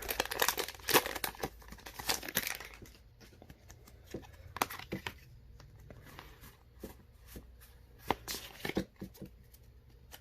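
Foil Pokémon booster pack wrapper being torn open and crinkled, dense at first and then in scattered crackles as the cards are handled.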